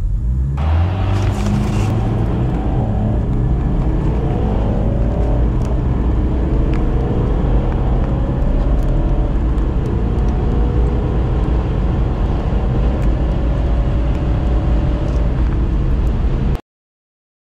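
Diesel car accelerating hard from a standstill, heard from inside the cabin. The engine note rises again and again as the automatic gearbox shifts up through the gears, then cuts off suddenly near the end.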